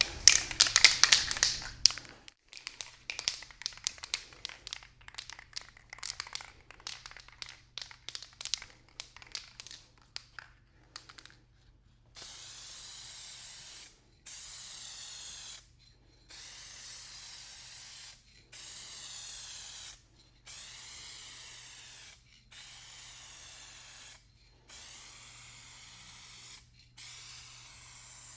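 Aerosol spray paint can: first a fast clicking rattle for about ten seconds, then a string of about eight spray bursts, each a steady hiss of about two seconds with short breaks between, as the paint goes on in even passes.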